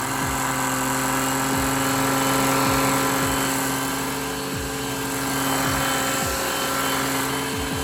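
Deerma cordless vacuum cleaner's motor running steadily, a whirring hum over a loud rush of air.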